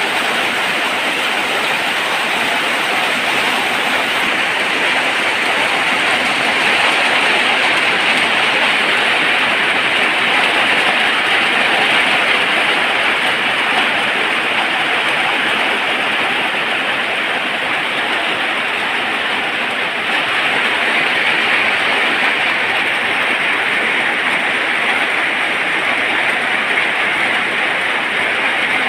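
Steady heavy rain falling, a dense even hiss with no let-up.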